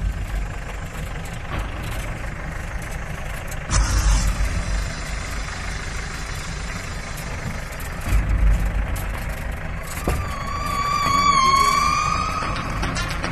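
Modified Jeep driving off-road: a steady rumble and noise, with low thumps about four and eight seconds in. Near the end a wavering high tone with overtones sounds for about two seconds.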